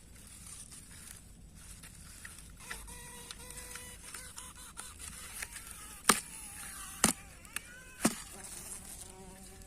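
Insect buzzing in flight, wavering in pitch, with three loud sharp clicks about a second apart near the end.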